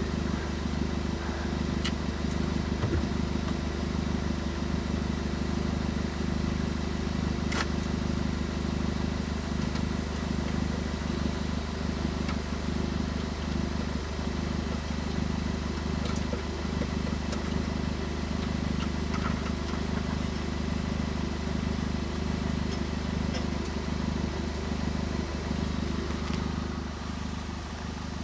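Vehicle engine idling steadily, a constant low hum, with a couple of faint sharp clicks.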